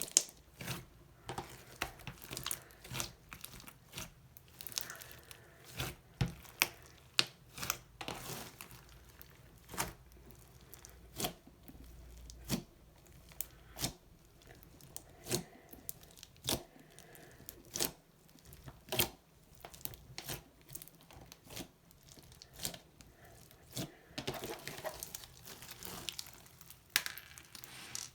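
Slime being kneaded and stretched by hand, with sharp pops and crackles about once or twice a second as trapped air bubbles burst.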